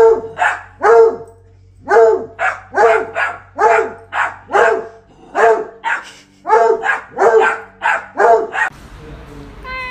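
A dog barking repeatedly, sharp barks coming two or three a second in runs with short pauses. The barking stops a little before the end.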